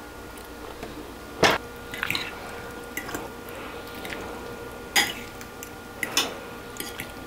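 Metal spoon and fork tossing a dressed corn and chickpea salad in a bowl: soft wet squelching broken by a few sharp clinks of metal on the bowl, the loudest about a second and a half in and again at five seconds.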